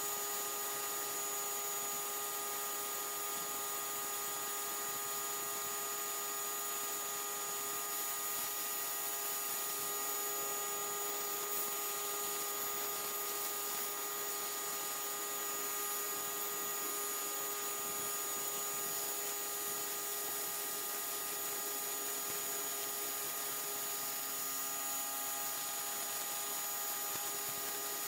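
Simoniz 1800 PSI / 1.4 GPM electric pressure washer running steadily: a constant motor-and-pump hum with several held tones, over the hiss of the water jet striking concrete.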